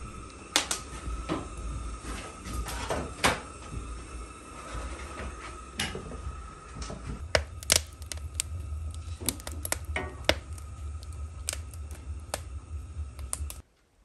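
Wood fire crackling and popping in an open sheet-metal box stove: irregular sharp snaps over a low steady rumble, stopping abruptly near the end.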